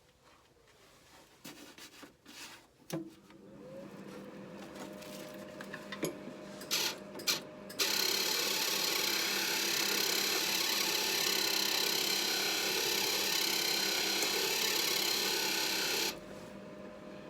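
Welding on car body steel: a few short bursts, then a steady crackling weld run of about eight seconds that stops abruptly, over a faint steady hum.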